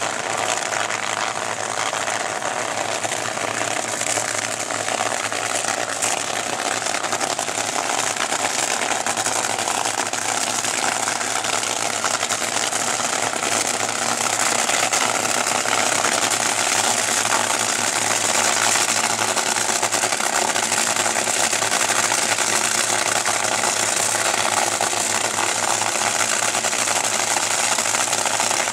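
Top Fuel dragster engine idling: a steady, rough mechanical running noise that grows a little louder about halfway through.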